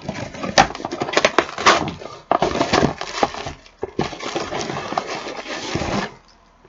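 Amazon shipping box being torn open and its packaging handled: a dense run of ripping, rustling and sharp clicks and crackles that stops about six seconds in.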